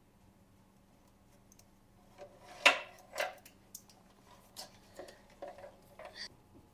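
Hands handling wiring and a cable fitting inside a dental air compressor's sheet-metal control box: small clicks, clacks and rubbing that start about two seconds in, the loudest clack a little under three seconds in.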